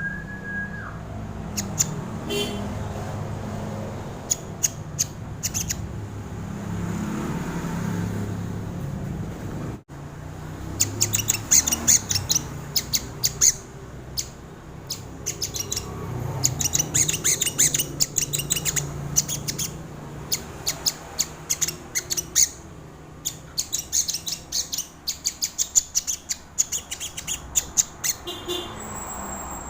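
Crimson sunbird (sogon) calling: quick runs of short, sharp, high-pitched chips and ticks, repeated in bursts, over a faint low hum.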